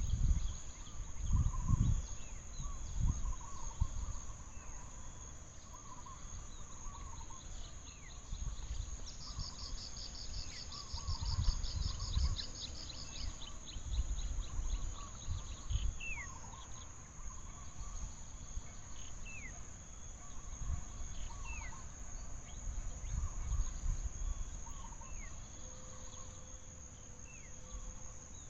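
Tropical forest ambience: insects keep up a steady high-pitched drone while birds call throughout with short chirps and falling whistled notes. About nine seconds in there is a fast trill lasting about four seconds. Low rumbles come and go beneath it all.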